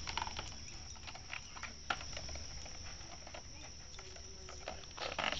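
Puppy chewing and nosing a red plastic toy truck: scattered light clicks and taps of plastic against teeth and ground, over a steady high hiss, a little louder near the end.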